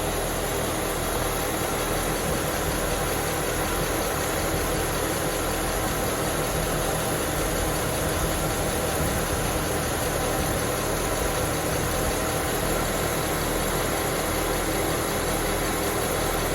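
Car running with a steady, even mechanical hum, heard at the wheel hub while it is checked for wheel bearing noise.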